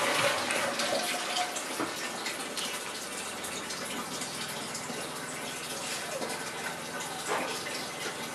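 Toilet cistern refilling after a flush: a steady hiss of running water that eases from the tail of the flush within the first second, then runs on evenly.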